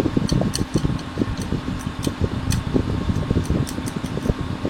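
Steady electric fan hum, with irregular light clicks and scrapes from a small tool scratching at a circuit board.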